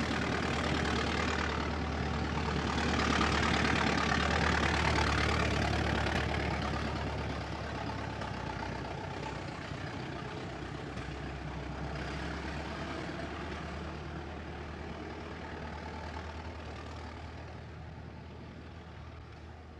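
1920s American car engine running at a steady pace, then fading gradually over the second half as the car moves away.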